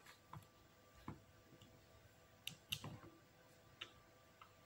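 Faint, scattered clicks and taps of plastic Lego Technic parts being handled and pressed together, about six in all, the loudest a little under three seconds in.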